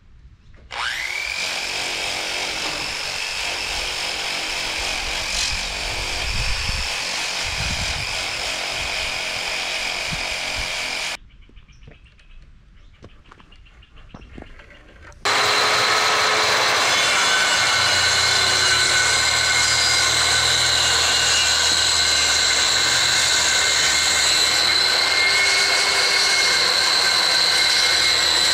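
Electric power tools on wood. A hand-held tool spins up with a rising whine about a second in, runs steadily and stops at about eleven seconds. After a few seconds' lull a DeWalt circular saw starts abruptly and runs steadily, louder, with a high whine, cutting a board.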